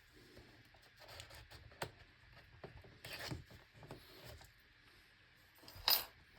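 Rustling and scraping of packaging being handled around a sealed hardcover book, with one louder sharp crinkle-tear near the end.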